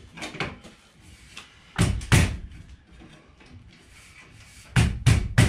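Sharp knocks and bangs from the metal parts of a SafeRack overhead garage rack being worked into place by hand: two about two seconds in, then three in quick succession near the end.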